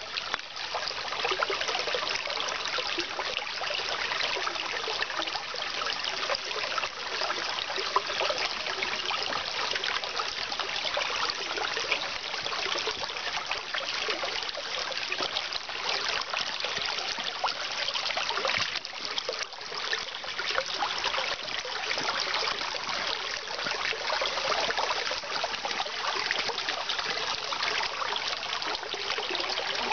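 Small mountain stream (riachuelo) trickling and babbling over rocks, a steady gurgle of running water.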